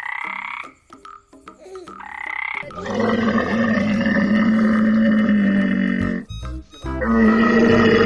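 A tree frog calling twice in short calls, then a camel's long, loud, rough call from about three seconds in, breaking off near six seconds and starting again near seven.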